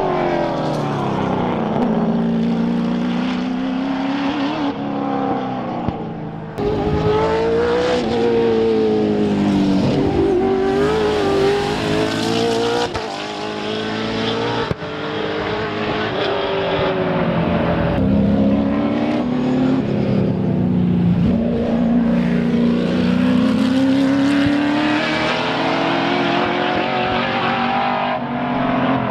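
Sports sedan race cars' V8 engines at racing speed, two or more cars close together. The pitch climbs through the gears and drops again on lifts and downshifts, several times over.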